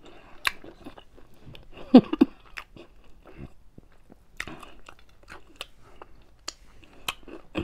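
Close-miked eating sounds: chewing and crunching food, with irregular sharp wet smacks and clicks. A louder pair of smacks comes about two seconds in.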